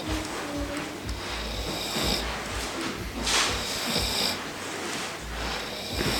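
Beagle snoring while asleep, a few noisy snoring breaths in slow succession, the loudest about three seconds in.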